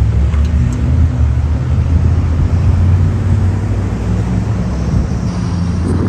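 A motor vehicle's engine running close by: a steady low rumble.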